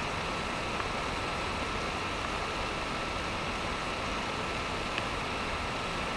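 Steady hiss of background noise with a faint steady high tone, and a couple of faint ticks.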